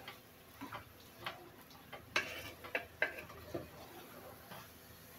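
A spatula stirring potatoes and tomato masala in an aluminium pot, giving irregular scrapes and taps against the pot, about eight in five seconds, the loudest a little over two seconds in.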